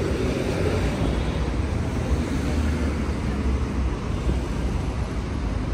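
Steady low rumble of city street noise, with no single distinct event.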